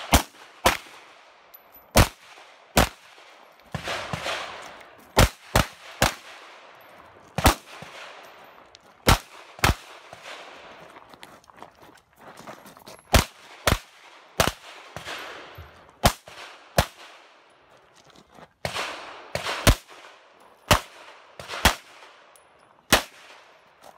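Rapid pistol shots from a red-dot-sighted Springfield XD(M) competition pistol during a USPSA stage run. There are about twenty sharp cracks, mostly double-taps about half a second apart, with short pauses between pairs as the shooter moves from target to target.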